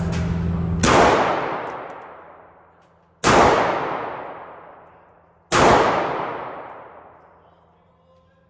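Three single shots from a Glock 19 9mm pistol, spaced a little over two seconds apart, each ringing out and dying away over about two seconds. A steady hum runs under the first second, before the first shot.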